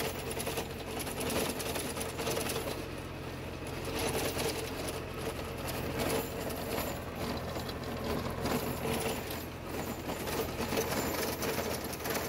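Farmtrac Atom 26 mini tractor's Mitsubishi three-cylinder diesel engine running steadily under heavy load, driving a Shaktiman 20-blade gear-drive rotary tiller (rotavator) that churns through sunn hemp, with a fast mechanical rattle over the engine drone. The load pulls the engine down from its set 1800 rpm to about 1600.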